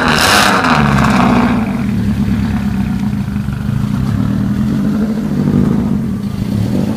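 Rally car engine running hard, with a loud rush of noise over the first second and a half before the steady engine note carries on alone.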